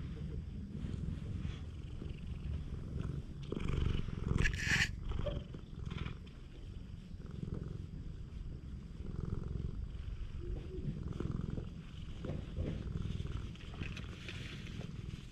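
Domestic cat purring steadily up close while being stroked, a sign of contentment. A louder brushing rustle, fur or a hand against the microphone, comes about four seconds in.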